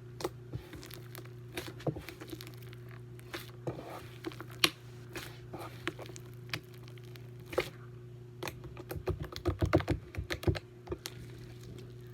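Slime being worked by hand: scattered sharp sticky clicks and pops, thickening into a quick run of them from about eight and a half to eleven seconds in. A steady low hum runs underneath.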